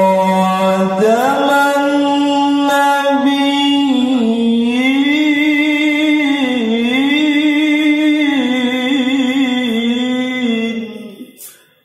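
A male qari reciting the Qur'an in the melodic tilawah style. He holds one long, ornamented phrase whose pitch steps up about a second in, then winds up and down, and breaks off near the end.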